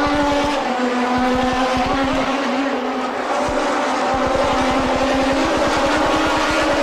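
1988 Formula One race car engine running, its pitch dipping slightly after the first second or so and climbing again near the end.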